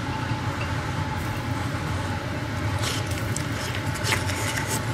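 Steady fan hum with a faint high whine. About three seconds in and again near the end come short wet slurping noises as a grilled oyster is sucked from its shell.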